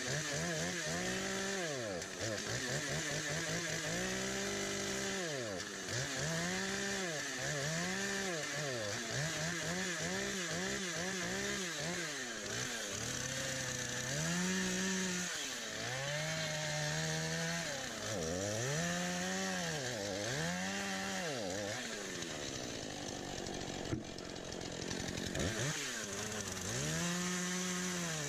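Stihl MS251 C two-stroke chainsaw cutting a large pine log, its engine revving up and falling back over and over, about every second or two. The engine drops to a lower pitch for a few seconds shortly before the end, then climbs again.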